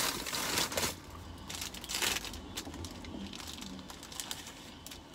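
Paper and wrapper packaging from a fast-food meal crinkling and rustling as it is handled, loudest in the first second and again about two seconds in, then softer rustling with small clicks.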